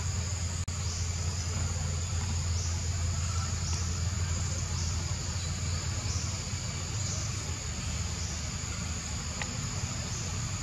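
Insects buzzing in a steady high drone that swells about once a second, over a steady low hum.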